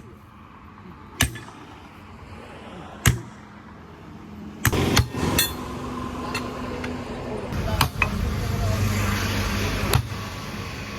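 Sharp metal knocks one to two seconds apart, like hammer blows on steel, with a diesel engine running underneath from about halfway in.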